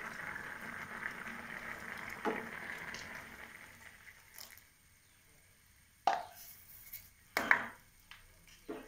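Coconut milk and sugar tipped from a cup into a steel pan of semiya payasam, with liquid plops, then a few short knocks and clinks of the cup and spoon against the pan, the loudest about seven and a half seconds in.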